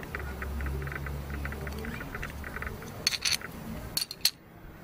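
Light clicks and clinks of plastic and metal projector parts being handled, with a few sharp clicks about three and four seconds in, over a low rumble.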